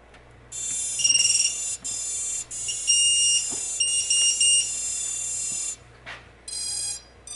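Emax 2205 brushless motors beeping their BLHeli ESC power-up tones as the LiPo battery is connected: about five seconds of high tones that change pitch a few times, then two short beeps near the end.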